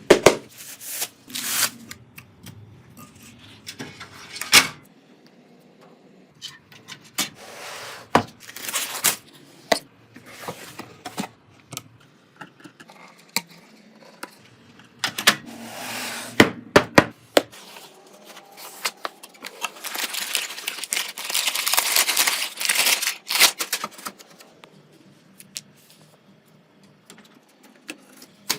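Handling noise from computer hardware being assembled: scattered clicks, knocks and clunks of parts being fitted, with rustling in between and a longer stretch of rustling noise about twenty seconds in.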